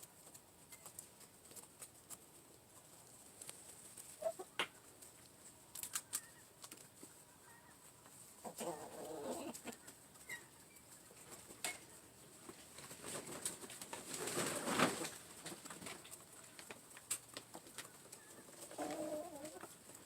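Laying hens feeding at a trough: scattered sharp beak taps, a few patches of soft low clucking, and a longer breathy noise about two-thirds of the way through.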